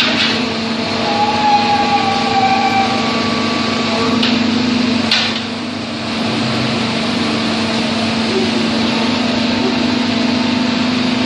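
HFU-3A hydraulic underground core drilling rig running with a steady mechanical hum, broken by a few short, sharp knocks.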